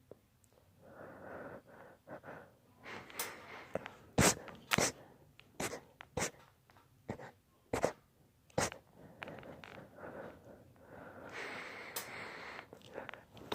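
A man in a sneezing fit: a run of short, sharp sneezes in quick succession from about three to nine seconds in, with heavy, wheezy breathing before and after.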